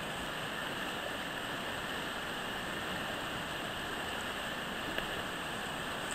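A rocky mountain river running over a riffle: a steady rush of water, with one brief click about five seconds in.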